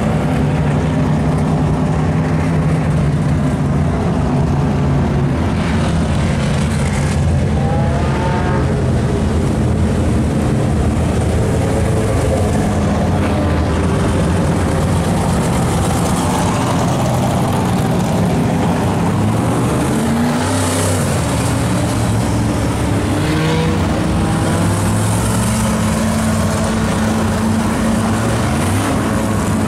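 Several dirt-track race car engines running at low speed together, a loud, steady mix of overlapping engine notes with a few brief revs.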